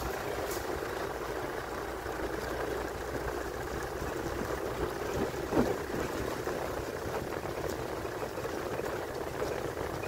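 A vehicle driving slowly along a dirt track: steady engine and road noise, with one short knock a little past halfway, as from a bump.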